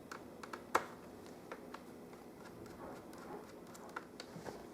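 Faint scattered clicks and light taps of a small screwdriver working screws out of a laptop's screen assembly, with one sharper click a little under a second in.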